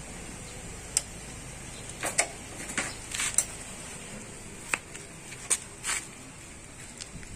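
Pliers and small metal parts on a small generator engine: scattered sharp metallic clicks and short scrapes at irregular intervals, some in quick pairs, as a spring is fitted to the engine.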